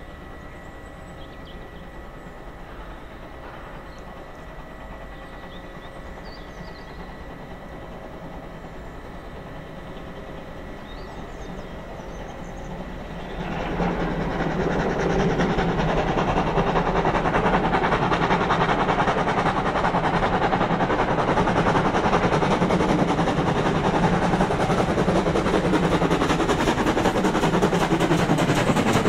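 GWR 57xx-class pannier tank steam locomotive No. 7714 running on the line. It is fairly faint at first, then about halfway through it suddenly becomes much louder as it comes close, with rapid exhaust beats and the noise of wheels on the rails.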